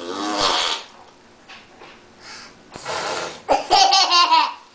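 Toddlers' voices: a wavering vocal sound at the start, then high-pitched squealing and laughter for about a second near the end.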